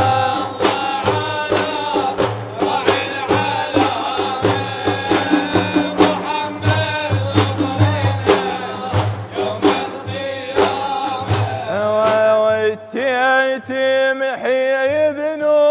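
Large hand-struck frame drums beating a steady rhythm under male voices singing a devotional refrain. Near the end the drum strokes thin out and a sustained, wavering sung line comes to the front.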